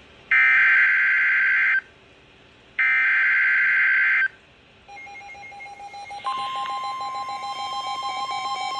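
Emergency Alert System SAME header: three loud bursts of shrill, warbling digital data tones, each about a second and a half long with about a second's pause between them. From about five seconds in, the steady attention tone of a new alert rises in.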